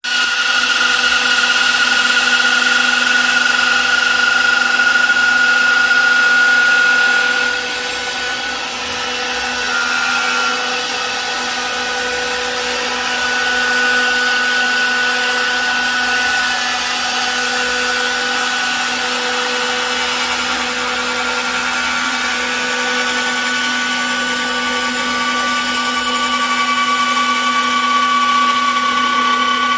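Five-axis CNC router's high-speed spindle running with a steady whine while its cutter trims a carbon fiber helmet shell. It gets a little quieter about eight seconds in, and the pitch of the whine shifts slightly as the cut goes on.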